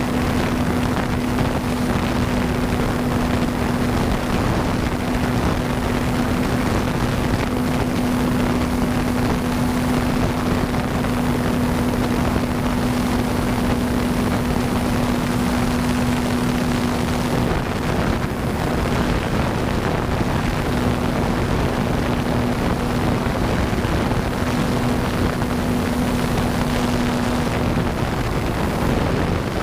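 Electric motor and propeller of an RC plane (Avios Grand Tundra) running at steady throttle, a constant hum with rushing wind noise, dipping briefly about seventeen seconds in and again near the end.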